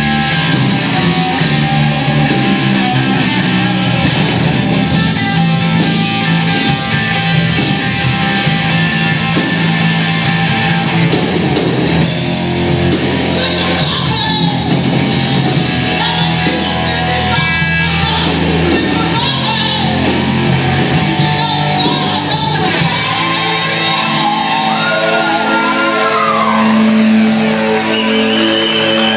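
Blues-rock band playing live and loud: drums, electric guitar and bass, with a voice singing and shouting over them.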